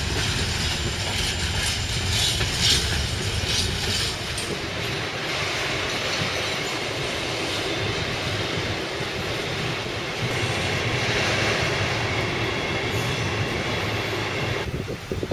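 Freight train wagons rolling past on the rails: a continuous loud rumble of steel wheels on track, with sharp rail-joint clicks through the first few seconds. The sound changes abruptly shortly before the end.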